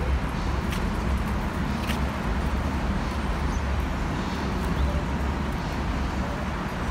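Steady street traffic noise with a low rumble.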